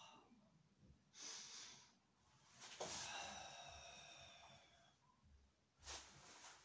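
Faint controlled breathing of a karateka working through a kata slowly: a short breath about a second in, then a long drawn-out breath, and a brief sharp one near the end.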